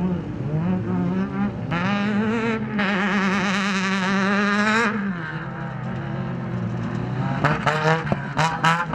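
Off-road race vehicle's engine running hard: its pitch climbs over the first couple of seconds, holds high and wavers, then drops about five seconds in. A few sharp knocks come near the end.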